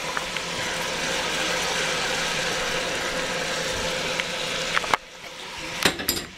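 Diced onions, celery and carrots sizzling in hot oil in a Le Creuset enameled cast-iron Dutch oven, a steady frying hiss. About five seconds in the hiss drops away sharply, followed by a few knocks and clicks.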